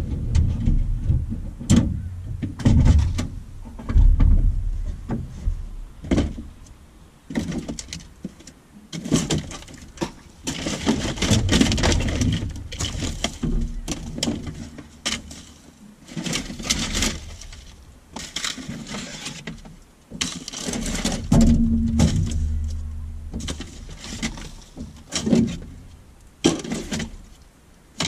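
Rubbish being unloaded from the car and dumped: irregular knocks, thumps and clatters, with a few longer stretches of scraping and rustling midway.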